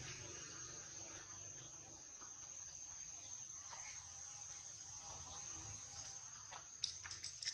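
Faint, steady high-pitched drone of an insect calling, with a few sharp clicks near the end.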